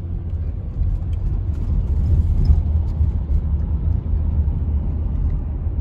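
A car driving, heard from inside its cabin: a steady, low road-and-engine rumble.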